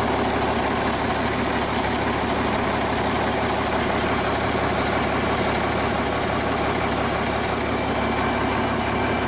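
Cummins 8.3-litre inline-six diesel running steadily in the forklift, with an even, unchanging engine sound.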